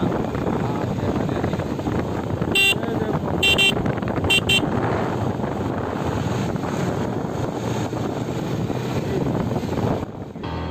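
Motorcycle riding along, with steady engine and wind noise, and a horn sounded in several short beeps a couple of seconds in: a single beep, then a longer one, then two quick ones. The sound drops off suddenly near the end.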